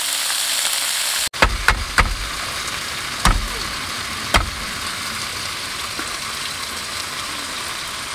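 Food frying in a pan over a campfire: a steady sizzle, with a handful of sharp pops and crackles in the first few seconds after a brief dropout about a second in.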